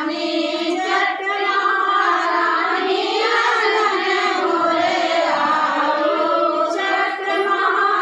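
A group of women singing a devotional puja song together in high voices, several voices overlapping in a continuous chorus.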